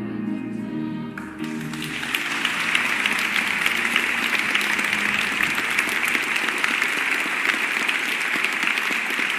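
A choir with piano holds its final chord, which ends about a second and a half in. A seated audience then breaks into steady applause.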